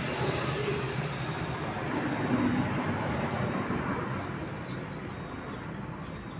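Steady vehicle noise with a low rumble, easing off a little in the last couple of seconds.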